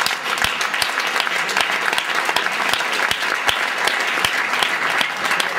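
Audience applauding steadily, with a few louder single claps close to the microphone.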